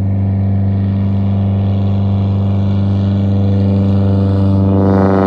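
Piston-engine propeller airplane running at high power for takeoff: a loud, steady, deep drone that climbs slightly in pitch near the end.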